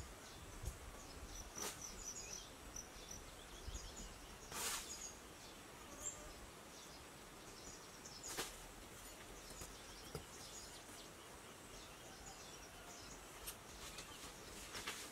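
Faint outdoor background with a hand digging tool scraping and scooping dry sandy soil, one stroke every few seconds. Small high bird chirps come in between the strokes.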